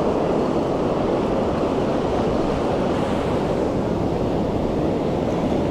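Ocean surf washing up the beach as a steady rush of whitewater, with wind on the microphone.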